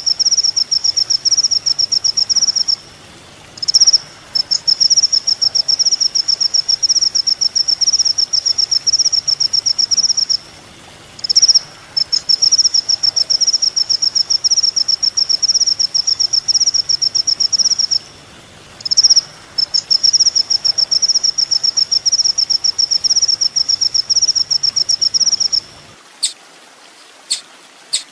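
Kolibri ninja (sunbird) song from a bird-training recording: long, rapid, high-pitched trills of about six seconds each, repeated with short pauses and a brief chirp before each trill, then two short sharp notes near the end.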